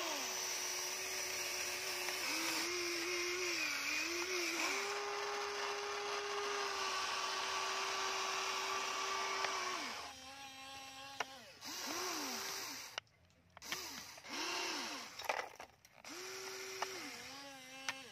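Electric motors of a Huina radio-controlled toy excavator whining as the arm and bucket move, the pitch dipping and rising with the load. After about ten seconds the whine stops and starts in short spells, with a few sharp clicks.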